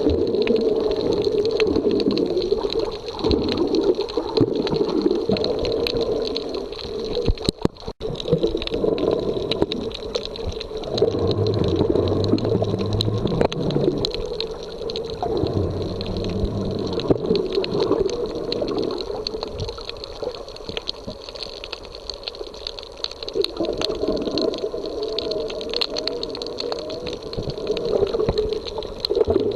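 Sea water washing and churning on a beach in an uneven, continuous wash, with a faint steady high tone over it and a brief drop-out about eight seconds in.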